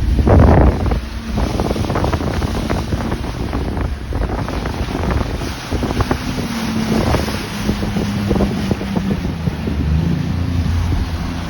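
A boat under way on the lake: its motor runs steadily beneath heavy wind buffeting on the microphone, with irregular knocks and slaps throughout.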